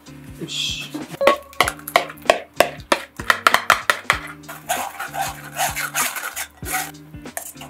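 Metal spoon scraping and tapping against a wire-mesh sieve as a thick shrimp-shell and onion purée is pushed through it, with rapid clicks and scrapes, over light background music.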